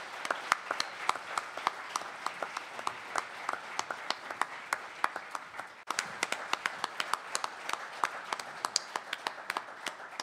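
Audience applauding, a dense mass of hand claps, with a brief break about six seconds in before it carries on.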